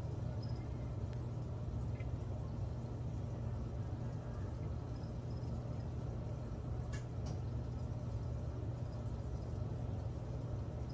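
Steady low hum over a background hiss, with a single faint click about seven seconds in.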